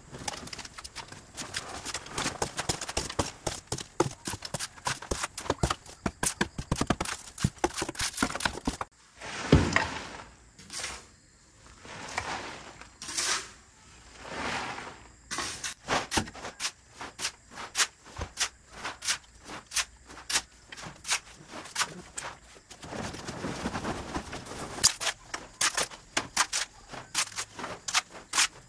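Rapid, irregular knocking and clicking, several strokes a second, with a few longer, noisier strokes about a second apart in the middle.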